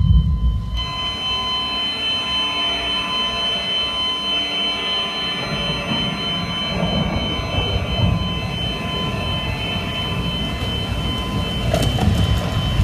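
Sustained theatrical drone from the theatre's sound system: a steady low rumble with held high tones above it, swelling slightly near the end.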